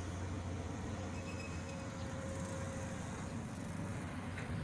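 Diesel engines of a working hydraulic excavator and a dump truck running: a steady low rumble.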